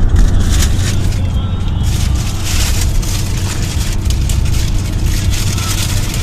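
Road noise inside a moving car: a steady low rumble of engine and tyres, with a hiss of wind that swells and fades.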